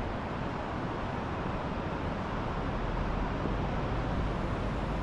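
Steady rumble and hiss of a vehicle towing a caravan as it drives slowly over beach sand, getting a little louder about three seconds in.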